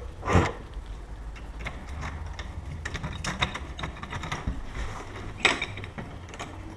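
Small metallic clicks and ratchety ticking of an Allen key turning screws on a deadbolt being fitted to a door, with a louder knock about half a second in and another at about five and a half seconds.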